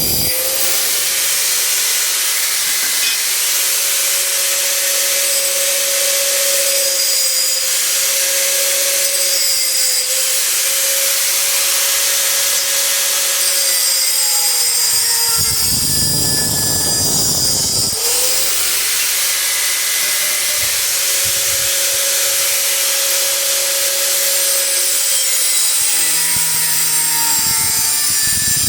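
Electric angle grinder working metal rods, with a steady motor whine and a hiss of abrasive on steel. The pitch sags each time the disc is pressed into the work, most deeply about halfway through, then winds back up.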